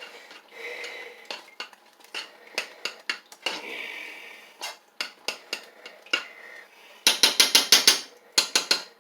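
A spoon stirring oatmeal in a cooking pot, with scattered clinks and scrapes against the pot. About seven seconds in comes a quick run of loud taps.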